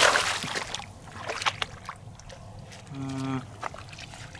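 Water splashing and trickling, loudest in the first second, then scattered small drips and splashes. A short hummed voice sound comes about three seconds in.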